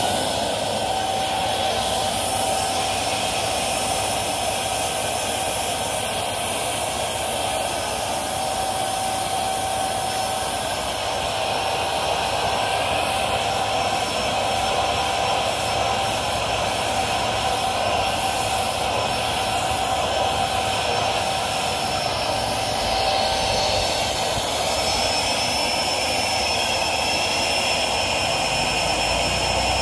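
Electric balloon pump running steadily, a constant motor whine over a rush of air as it blows up a large balloon.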